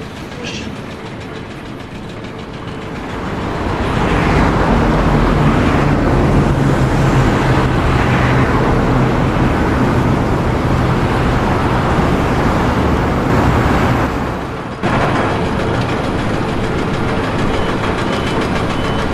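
A machine running steadily with a low hum, growing louder about four seconds in; the sound changes abruptly near the end.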